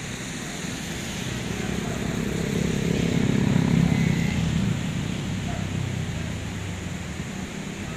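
Steady rushing of a flood-swollen river. A motor vehicle passes close by, its rumble building to loudest about halfway through and then fading.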